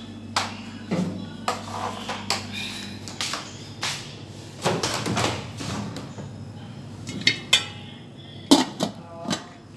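Irregular knocks and clatters of hard plastic on a tiled floor as a vacuum cleaner hose and wand are handled, the loudest knocks near the end. A low steady hum stops about three seconds in.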